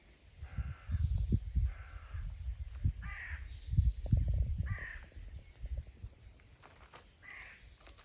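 A crow cawing about five times, the harsh calls unevenly spaced, over the low rumble of wind gusting on the microphone.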